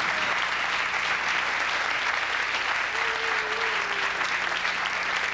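Audience applauding: dense, steady clapping throughout.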